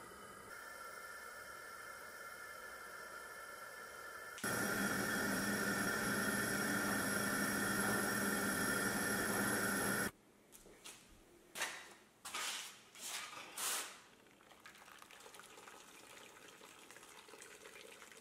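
Gas burner under a pot of water boiling a deer skull: a steady hiss that steps up louder about four seconds in. After a sudden cut, a few short splashes and drips of water as the skull is lifted out of the boiling pot.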